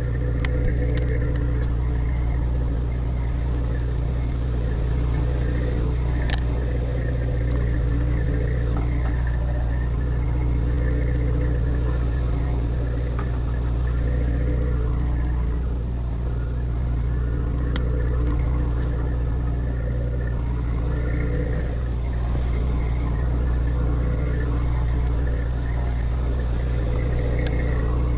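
A sportfishing boat's engine running steadily: a constant low hum with an unchanging pitch.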